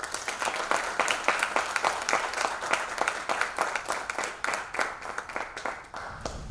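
Small audience applauding, many hands clapping densely and thinning out near the end.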